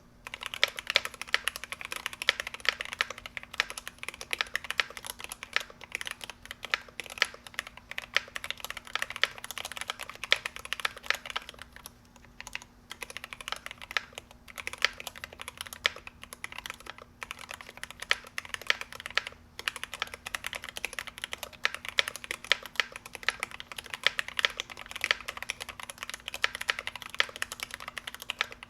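Typing on a GMMK Pro mechanical keyboard with lubed Gateron Black Ink v2 linear switches in an aluminum plate: rapid, continuous keystroke clacks with a few brief pauses.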